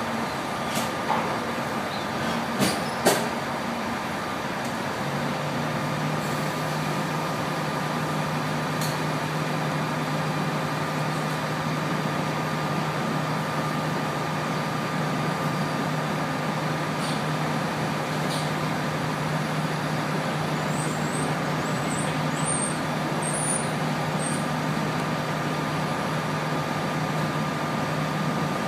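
Steady engine drone of a nearby idling bus, with a freight train of tank cars rolling past in the distance. A low hum sets in about five seconds in, two sharp knocks come around three seconds, and faint high squeaks sound near the end.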